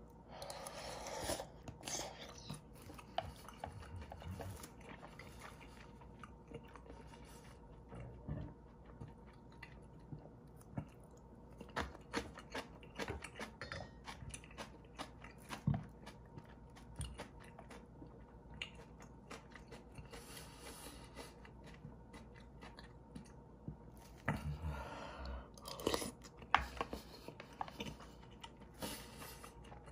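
Close-up eating of instant ramen with dumplings: chewing and biting, with several bursts of slurping noodles and broth, and small clicks of a metal spoon against the plastic bowl.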